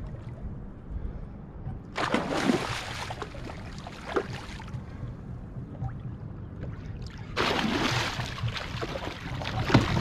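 A hooked musky thrashing and splashing at the surface beside a kayak during the fight, in two bursts of splashing: about two seconds in, and again from about halfway through the second half as it comes to the net.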